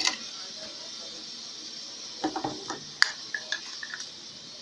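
Small plastic bottles clicking and knocking as they are handled. There is a sharp click at the start, a cluster of knocks a little past halfway, then another sharp click and a few lighter taps, over a steady background hiss.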